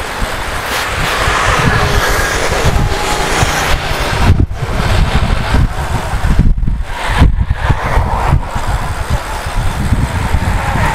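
Wind buffeting the microphone of a camera on a moving bicycle, a deep uneven rumble, mixed with the noise of road traffic.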